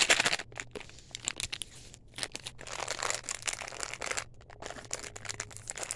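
Plastic wrapper of an M&M's candy bag crinkling as it is handled and opened: a spell of rustling at the start, a longer one in the middle, and scattered crackles between and after.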